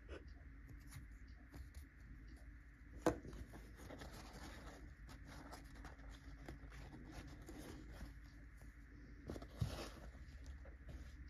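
Faint handling noises of small fountain pen parts: light clicks and the rustle of a paper towel as a part is wiped. One sharp click about three seconds in and a louder rustle near the end.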